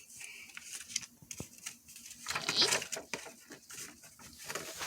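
A picture book being handled: a run of light clicks and taps, with a short rustle of paper about two and a half seconds in.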